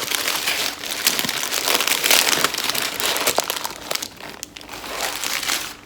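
Takeout food packaging being handled and opened: dense crinkling and crackling with scattered sharp clicks.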